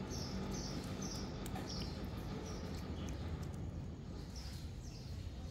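A bird calling with short, high chirps that fall in pitch, repeated about once a second, over a steady low background rumble.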